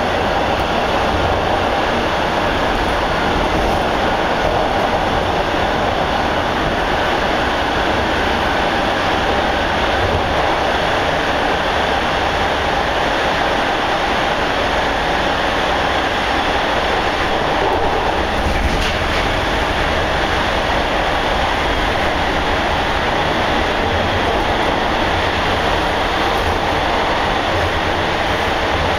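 Steady running noise of a Bombardier T1 subway car heard from inside the car: wheels on the rails and the car's running gear, holding an even level throughout.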